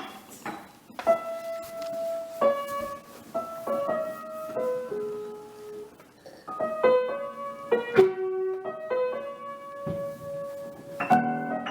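Piano played slowly, single notes one after another in a simple melody; fuller chords come in near the end.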